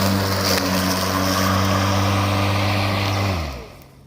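Hart 20V 16-inch cordless battery lawn mower running under load with a steady electric motor hum and blade whoosh. About three seconds in it is switched off and the motor winds down to a stop.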